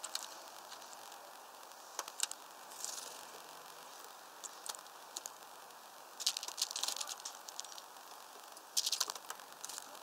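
Scattered sharp clicks and short crackly rustles from blue and great tits moving on a wooden bird feeder, busier in two short spells about six and nine seconds in.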